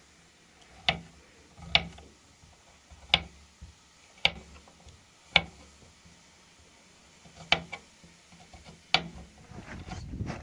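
A series of sharp knocks, seven in about eight seconds at uneven intervals, each short and clipped.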